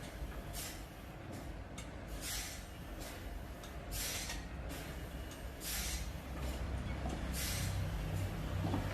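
Sawmill machinery running with a low hum, broken by short hissing bursts about every one and a half to two seconds; the hum grows louder near the end.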